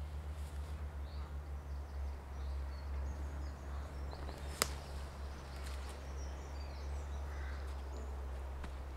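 A low steady rumble with faint birds chirping in pine woodland, and one sharp crack about halfway through.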